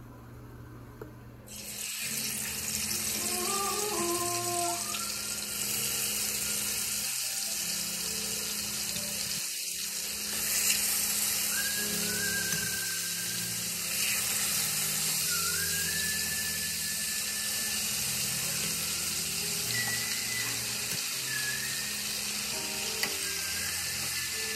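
Seasoned chicken thighs and drumsticks frying in hot olive oil in a nonstick pan: a steady sizzle that starts suddenly about a second and a half in and keeps going. Background music plays underneath.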